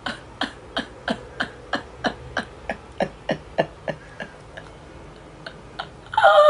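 A woman laughing in a long run of short, breathy 'ha' pulses, about three a second, which thin out and trail off near the end.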